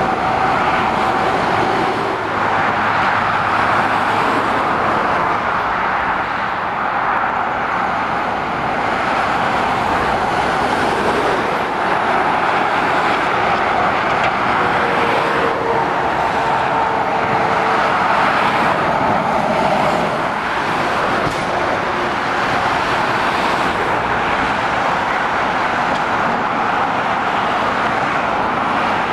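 Steady motorway traffic: a continuous rush of tyres and engines as lorries, cars and a coach go by, with no single vehicle standing out.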